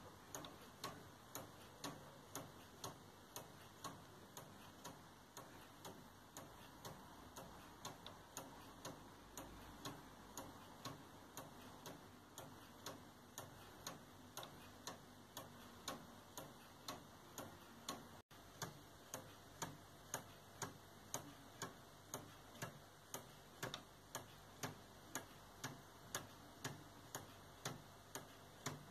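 Robotime laser-cut plywood pendulum clock ticking evenly at about two ticks a second: its wooden anchor escapement clicking against the escape wheel. The spring-driven clock is running properly after fine adjustment of its gears and arbors.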